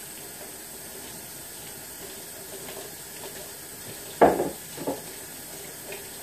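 Two knocks about half a second apart, the first much louder, as bottles and containers are handled on a kitchen counter, over a steady faint hiss.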